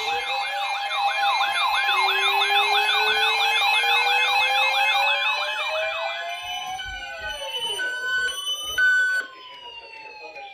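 Electronic sirens: a fast yelp sweeping up and down about two or three times a second over a steady tone, while a slow wail climbs in pitch and turns downward near the end. The sound drops sharply in level about nine seconds in.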